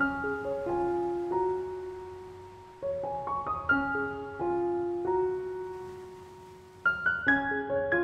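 Soft solo piano music: short rising runs of notes that ring on and fade away, a new run starting about every three to four seconds.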